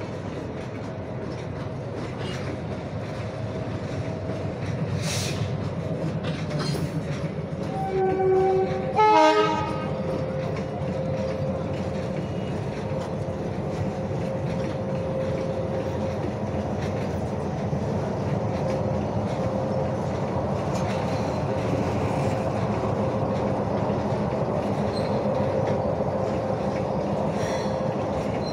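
Open-top freight wagons rolling past with steady wheel-and-rail noise and a steady whining tone. About eight seconds in, two short horn blasts sound close together, the loudest moment.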